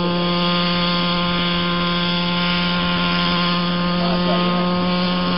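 Radio-controlled model helicopter hovering, its motor and rotor running at a steady pitch.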